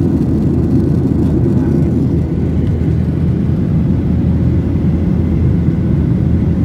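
Airplane during landing: a steady, loud low rumble.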